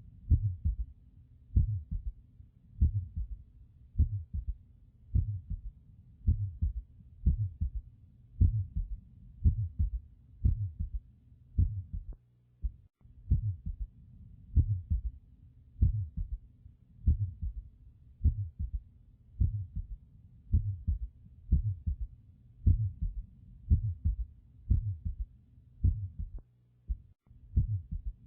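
Heartbeat heard through a stethoscope, a steady rhythm a little under one beat a second. Each beat is a cluster of low thuds with an innocent murmur and a third heart sound (S3).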